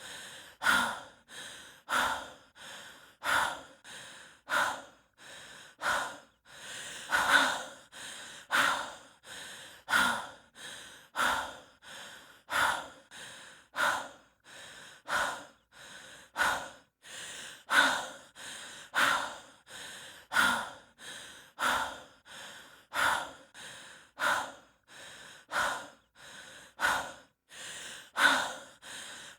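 A person breathing heavily and rhythmically from exertion: a loud breath about every 1.3 seconds, each followed by a softer one.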